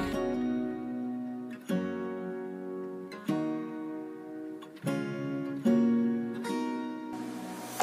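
Background music: acoustic guitar chords strummed every second or so, each left to ring out and fade before the next.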